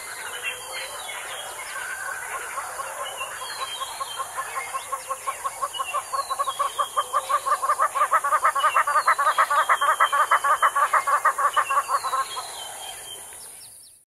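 Damara red-billed hornbill calling: a long run of repeated notes that grows louder and faster, up to about six a second, then fades away near the end. Another bird repeats a short, high, falling whistle every couple of seconds.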